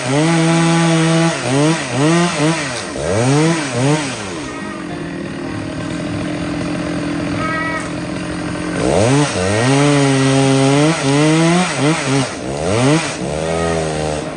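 Large two-stroke Stihl chainsaw running hard, its engine pitch repeatedly swinging up and down as the throttle is worked. It drops to a lower, quieter run for a few seconds in the middle, then revs up again.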